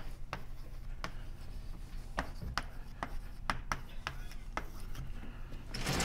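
Chalk writing on a blackboard: irregular sharp taps and short scratches as letters are written, about a dozen strokes at an uneven pace.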